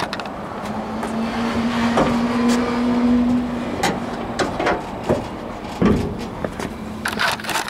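A motor vehicle running, a steady hum for the first few seconds, with a few scattered knocks and clicks.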